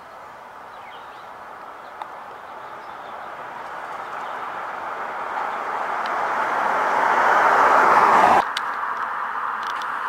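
A road vehicle approaching, its road noise growing steadily louder for about eight seconds, then cutting off suddenly.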